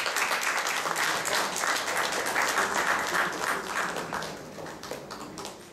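Audience applauding with many hands clapping, the clapping dying away over the last second or so.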